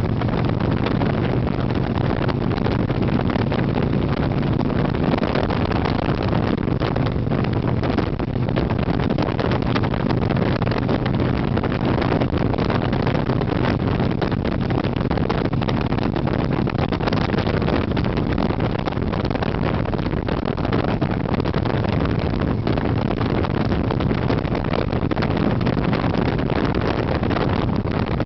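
Harley-Davidson Sportster 883's air-cooled V-twin running at a steady cruising pace, mixed with heavy wind noise on the microphone.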